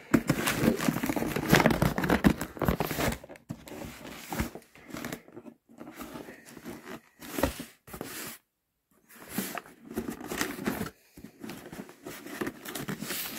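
Cardboard mailer box being cut and torn open: a knife tearing through the packing tape and cardboard, with the box flaps rustling as they are pulled. The tearing is loudest and most continuous in the first three seconds, then comes in shorter bursts with a brief pause a little past the middle.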